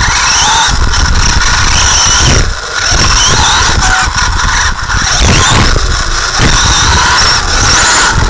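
Radio-controlled off-road car's motor and gear drivetrain whining as heard from on board, the high whine rising again and again as the throttle opens, over a heavy rumble from the chassis and tyres on the track. The sound drops off briefly about two and a half seconds in and again near five seconds, when the throttle is lifted.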